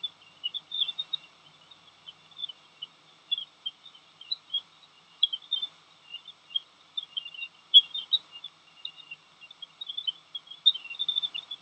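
Jupiter's electromagnetic emissions, recorded by NASA instruments and converted into audible sound: a dense, irregular stream of short, high chirps over a faint steady hiss.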